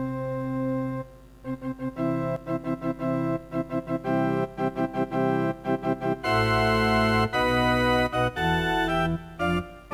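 Instrumental song intro on keyboards: sustained organ-like chords played in quick repeated pulses. About six seconds in, a bass line comes in and the music gets louder and fuller.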